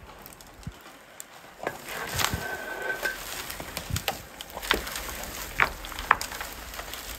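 Young trees snapping and cracking as a Sherp ATV crashes through them. Irregular sharp cracks of breaking trunks and branches, thicker from about two seconds in, over a faint low rumble.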